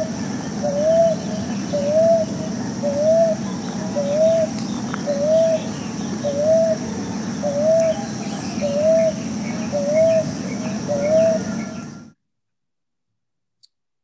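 Common ground dove calling: a regular series of short, soft rising coos, about one a second, over a steady background hiss. The calling cuts off suddenly about twelve seconds in.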